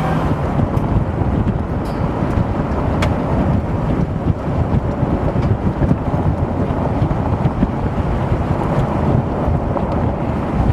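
Strong gusty wind buffeting the microphone, a loud, steady rumbling rush that flutters in level.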